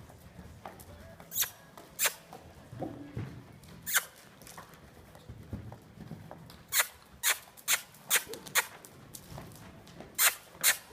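Saddled horse moving loose on arena sand: soft, dull hoofbeats, with about ten sharp clicks scattered through, several of them close together in the second half.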